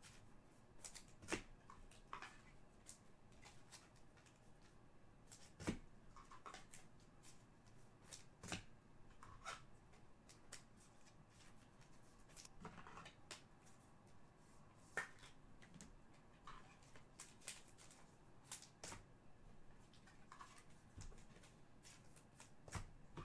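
Faint rustling and clicking of trading cards being handled and flipped through, with a few sharper taps spread through.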